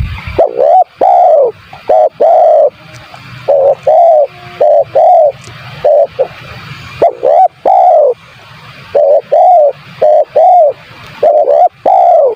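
Spotted dove (tekukur) cooing loudly in a run of repeated phrases. Each phrase is a quick group of short, low, arching coo notes, one after another, with a faint steady hiss in the gaps.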